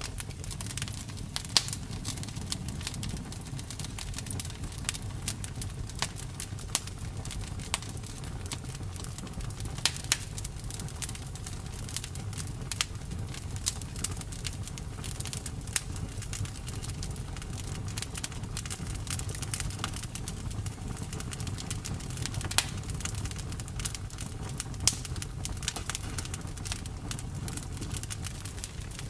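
Campfire burning: wood crackling with frequent irregular sharp pops over a steady low rumble, a few pops much louder than the rest.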